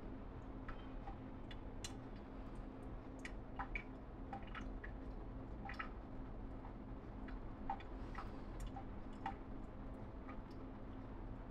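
Chewing: irregular small clicks and crunches, one or two a second, over a steady low hum.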